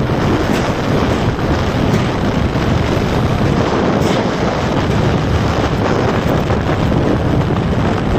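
Heavy wind buffeting on a phone microphone while riding a two-wheeler at speed, a loud steady rush of noise with no clear engine note.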